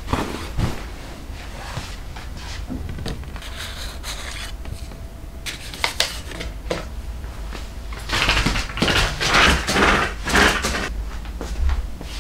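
Household handling sounds: cloth rustling and light knocks as bedding and small objects are moved about and set down. The loudest is a run of rustling bursts from about eight to eleven seconds in, as a blanket is handled.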